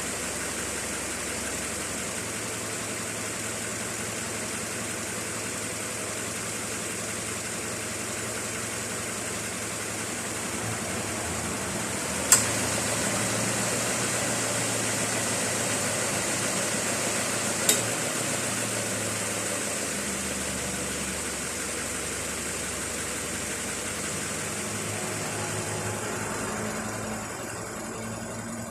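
Subaru Forester 2.0 idling with the air conditioning on. About twelve seconds in, the Valeo DKV-10 vane A/C compressor's clutch clicks in. The compressor runs for about five seconds without its cicada-like chirp, which enhanced noise-eliminating refrigerant oil has cured, then clicks off.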